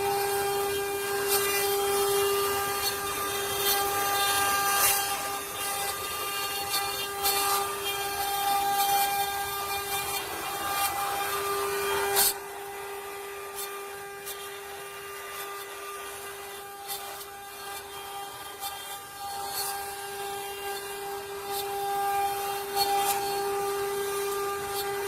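Six-spindle CNC wood-carving router at work: a steady high whine from the spindles over the rasping noise of the bits cutting wood. About twelve seconds in the sound drops suddenly and runs on quieter.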